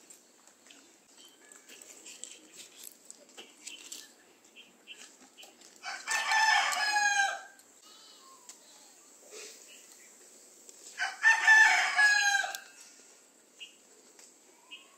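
A rooster crowing twice, each crow lasting about a second and a half, the second about five seconds after the first, over faint scattered clicks.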